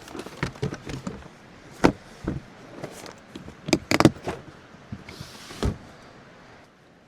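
Irregular knocks and clunks, the loudest about two and four seconds in, with a short hiss a little after five seconds.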